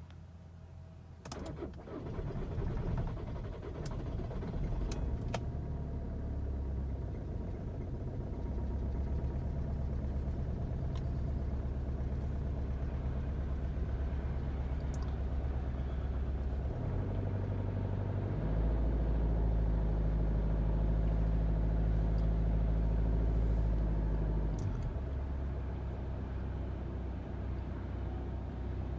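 2013 Volkswagen Jetta's 2.0 TDI four-cylinder diesel engine starting about a second in and then running steadily. It runs louder for about six seconds past the middle, then settles back.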